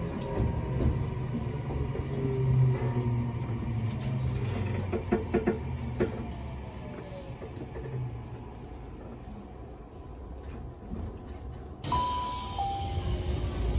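Inside a Tokyu 7000 series car (later build) as it slows: the Toshiba IGBT VVVF inverter and traction motors whine, their tones falling in pitch and fading out about eight seconds in, with a few sharp clicks of wheels over rail joints midway. About twelve seconds in the noise rises suddenly and a two-note falling chime sounds.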